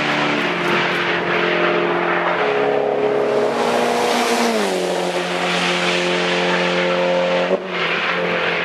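Race car engines running hard as cars drive away from the track edge. The engine tone steps down in pitch about halfway through and breaks off briefly near the end, as at a gear change.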